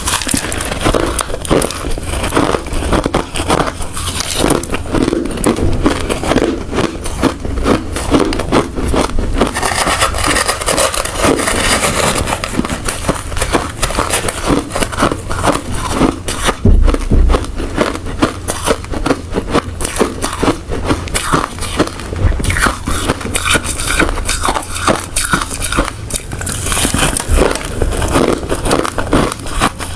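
Close-miked chewing of hard ice, a continuous run of dense, rapid crunches.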